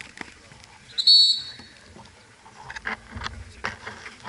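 A referee's whistle blown once: a short, high, shrill blast about a second in. Scattered knocks from play on the pitch around it.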